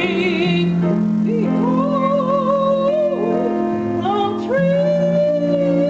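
A woman singing solo, holding long notes with vibrato, over a steady instrumental accompaniment.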